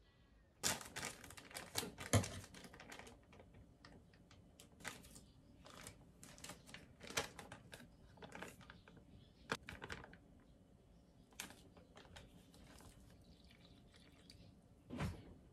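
Irregular clicks, taps and light rustles of kitchen handling: a bowl on a digital kitchen scale and a paper bag of flour being handled and poured, densest in the first couple of seconds, with a louder knock near the end.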